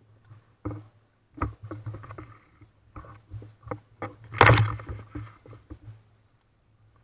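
Irregular knocks, clicks and rustling from movement and handling, with one louder rustle about four and a half seconds in, over a faint steady low hum.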